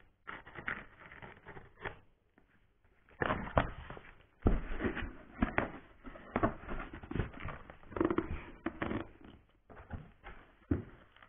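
Cardboard box flaps being handled and folded open: irregular scraping and rustling of cardboard with knocks, the loudest about three and four and a half seconds in.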